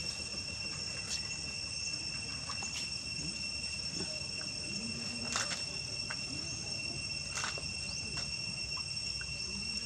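Steady high-pitched insect drone, with a few brief sharp clicks over it.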